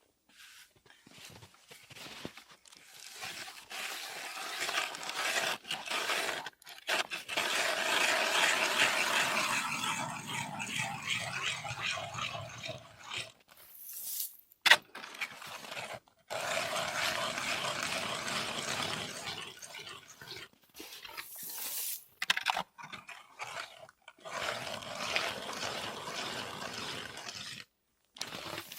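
Hand ice auger with freshly replaced blades drilling through ice, a steady crunching and scraping that stops abruptly several times.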